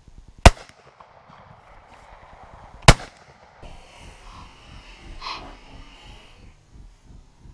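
Two gunshots from a hunter's shotgun, sharp cracks about two and a half seconds apart, fired at a running wild boar.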